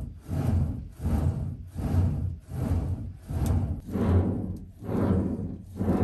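Hand-worked bellows pumping air into a charcoal-fired brick iron-smelting furnace at about one stroke a second, each stroke a rush of air with a low thud.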